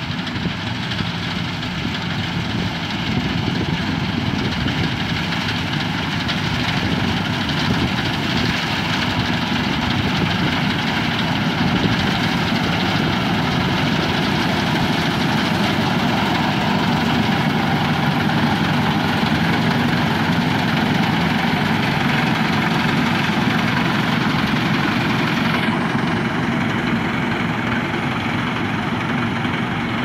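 Hira 985 combine harvester running while it harvests: a steady diesel engine and threshing-machinery drone that grows louder over the first few seconds as the machine comes closer.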